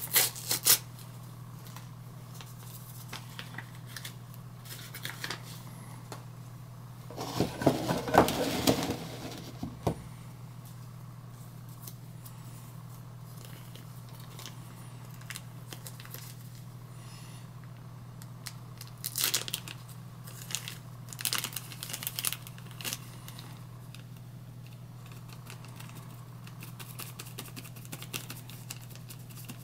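A paper seed packet being torn open and a small inner seed envelope crinkled and unfolded by hand, in scattered bursts of tearing and rustling; the loudest tearing comes about seven to ten seconds in, with more crinkling around twenty seconds. A steady low hum runs underneath.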